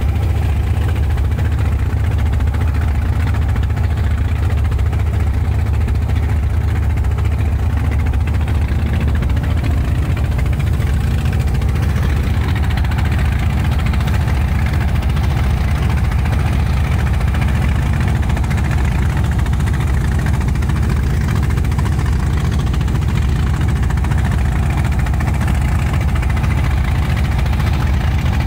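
Engine of a small wooden motor boat running steadily under way: a constant low drone that does not change in pitch or level.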